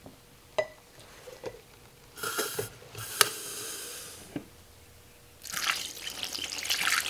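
A WD-40 aerosol can hissing in two short sprays into a glass jar, with a sharp click at the start of the second. Near the end, fuel is poured through a plastic funnel into a lawn mower's fuel tank, a louder uneven splashing.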